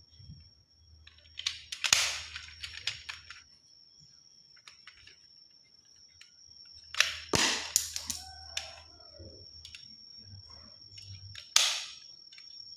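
Plastic toy guns clicking and rattling as they are handled and fired, in three bursts of sharp clicks. A faint steady high-pitched whine runs underneath.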